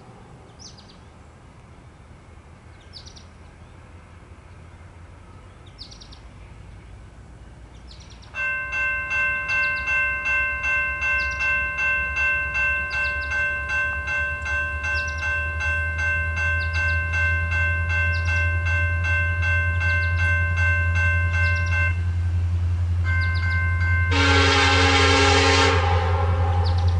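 Grade-crossing warning bell ringing in steady strokes, a little under two a second, starting about a third of the way in, while an approaching Norfolk Southern diesel locomotive's engine rumble builds. Near the end the locomotive's air horn sounds loudly.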